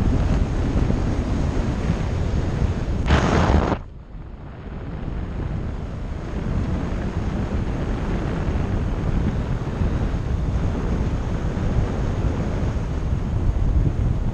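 Wind buffeting a GoPro's microphone during a parachute descent, a steady rushing. A louder, hissier gust about three seconds in cuts off suddenly, and the rush then builds back up.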